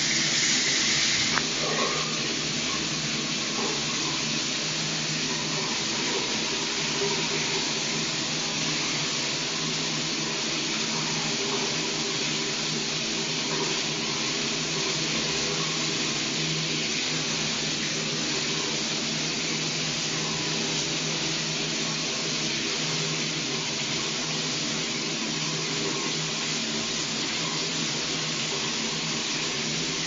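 Shower running steadily: an even, continuous rush of water spraying from the shower head and falling.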